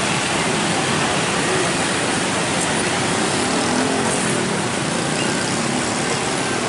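Steady traffic noise: the diesel engine of a tanker truck running as it rolls slowly past, mixed with idling motorcycles.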